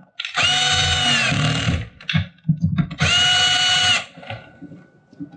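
Cordless drill/driver tightening wires into a power supply's screw terminals: the motor runs twice with a steady whine, first for about a second and a half, then for about a second, winding up at the start and down at the end, with a few small clicks in between.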